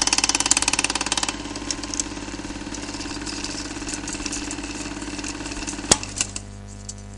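Intro sound effect: a loud, rapidly pulsing engine-like rumble that drops in level about a second in and then dies away, with a sharp knock near the end, leaving a steady low hum.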